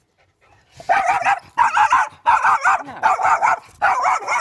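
A dog barking in quick runs of high-pitched yaps, starting about a second in.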